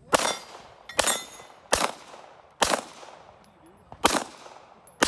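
A string of pistol shots, about six of them roughly a second apart, each followed by a short echo that fades quickly.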